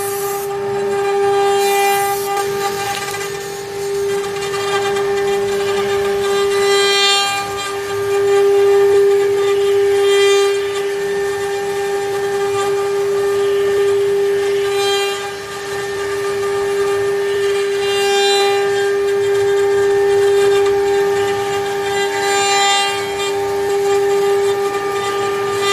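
Multi-spindle CNC router with twelve spindle motors running and carving wood relief panels: a steady high whine, with a surge of cutting noise every three to four seconds as the cutters bite.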